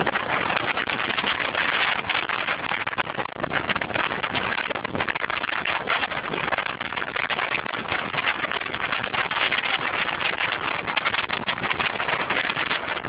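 Heavy storm waves breaking in a continuous rushing roar of surf and spray, with strong wind buffeting the microphone.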